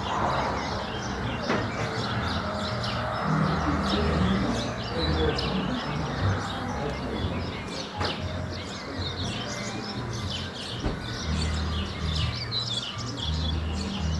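Many small birds chirping and twittering in quick, overlapping calls, over low bass notes of music.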